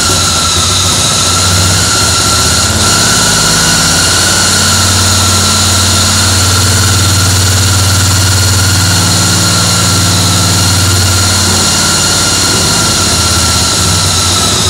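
A BMW R42's 500 cc side-valve flat-twin engine running on its stand, freshly rebuilt and just started after some 50 years laid up. It gets louder and fuller about four seconds in, then eases back a few seconds before the end.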